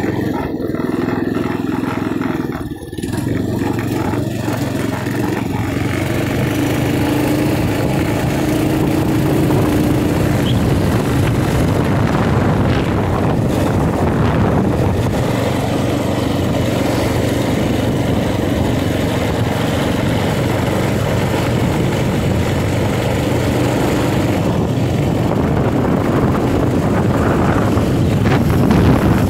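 TrailMaster MB200 motorcycle engine running while the bike is ridden, with a short dip in the engine sound about three seconds in, then a steady note.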